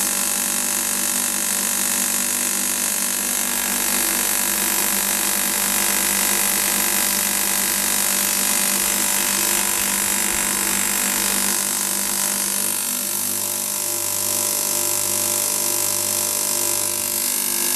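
ZIM-500 electric hammer grain grinder running steadily while it mills a grain mix. About two-thirds of the way through, its sound shifts as the last of the grain drains from the hopper.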